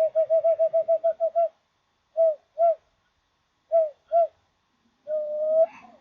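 Cupped-hands whistle, blown like across the mouth of a bottle, giving hollow ocarina-like hoots on one low pitch that imitate an owl. A fast run of about a dozen short hoots comes first, then two pairs of hoots, then one longer held note that rises at the end.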